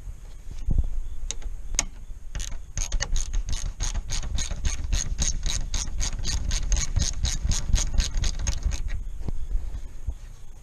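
Quarter-inch-drive ratchet clicking as a 13 mm radiator mounting bolt is backed out. A knock and a few single clicks come first, then a steady run of about five clicks a second that stops near the end.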